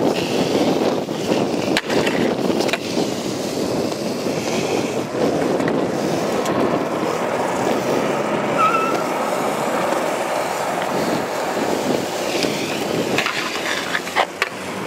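Stunt scooter's hard plastic wheels rolling on asphalt, a steady rumble, with a few sharp clacks of the scooter hitting the ground, two of them near the end.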